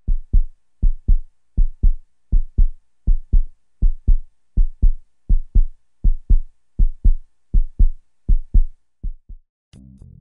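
Heartbeat sound effect: pairs of low thumps (lub-dub) repeating about every three-quarters of a second, the last beat fainter. Music comes in just before the end.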